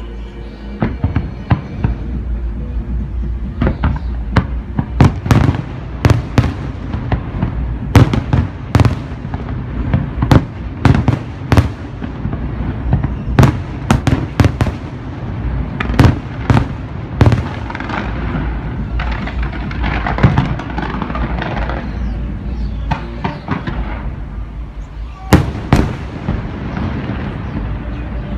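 Aerial firework shells bursting in rapid succession, many sharp bangs one after another, with a stretch of dense crackling about two-thirds of the way through and a last big bang near the end.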